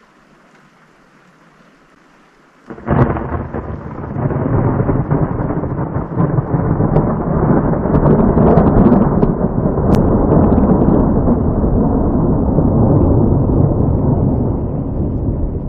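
Thunder: after a faint hiss, a sudden loud clap about three seconds in turns into a long rolling rumble that stays loud to the end.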